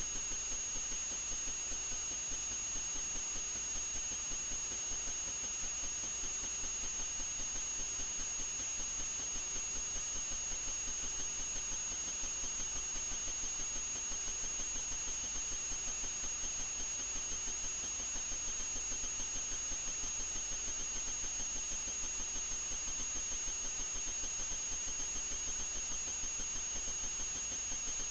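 Steady hiss with two constant high-pitched whines, unchanging throughout: electronic noise on the audio track of an FPV video recording.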